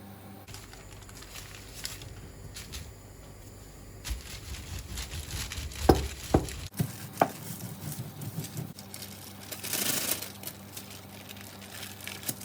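Rustling and crinkling handling sounds, with a few sharp knocks a little past the middle.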